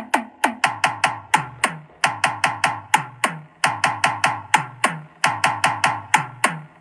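Music: a percussion beat of sharp, evenly repeated clicks, about three a second, each with a short falling tail, with a low bass note under some of them.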